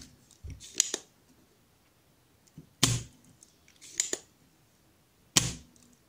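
Sharp snapping clicks, about four spread a second or so apart, some of them doubled: a spring-loaded desoldering pump being cocked and fired to suck solder out of the relay holes on a circuit board.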